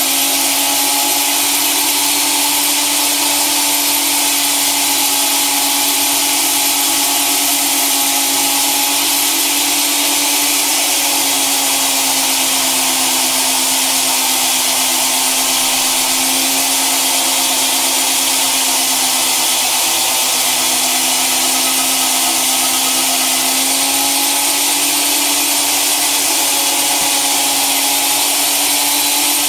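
Old German-made electric drill, clamped upright in a vise, running steadily as it spins an aluminium disc that is being hand-sanded to a shine. A constant motor hum over a strong hiss, its pitch dipping slightly now and then as the sanding bears on the disc.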